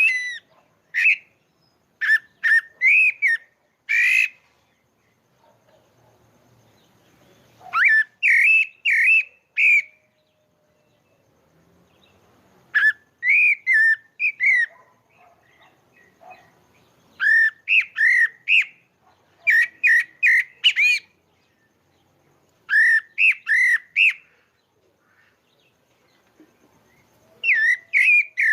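Pale-breasted thrush (sabiá-barranco) singing: phrases of clear, sliding whistled notes, each lasting a second or a few seconds, separated by pauses of a few seconds.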